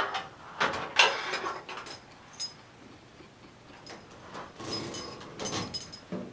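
A metal LED driver box and its flexible metal conduit knocking and scraping against a recessed ceiling downlight housing as they are pushed up into it: a few sharp knocks in the first couple of seconds, then a stretch of scraping and rattling.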